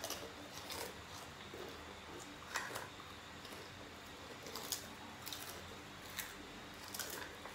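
Faint, scattered crunches and clicks of people eating, chewing and biting into crisp food, a few times over several seconds.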